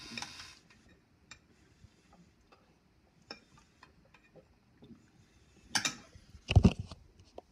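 Scattered faint clicks and ticks, then two louder knocks with rubbing about six seconds in, the second the loudest and deepest: camera handling noise.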